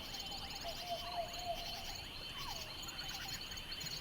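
Ambience of crickets and insects chirring steadily, with a few short calls that fall in pitch. The calls come about half a second in, over the first second and a half, and again near the middle.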